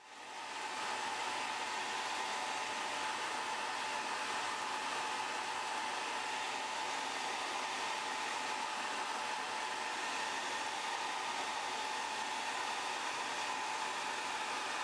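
Hot-air gun switched on and blowing steadily, with a faint whine over its rushing air, used to soften the adhesive holding the iPhone's front glass.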